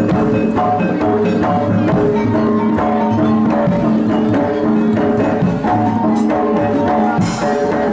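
Jaranan gamelan music: tuned metal percussion playing steady, repeating melodic strokes over drums, with no singing.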